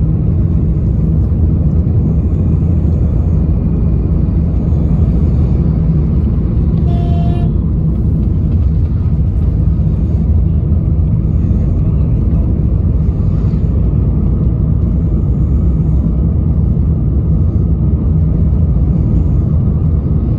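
Steady engine and road rumble heard inside a moving car's cabin, with one short vehicle horn toot about seven seconds in.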